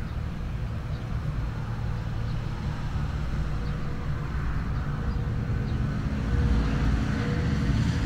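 Low, steady engine rumble of a motor vehicle, growing louder toward the end, with a faint steady whine coming in about halfway through.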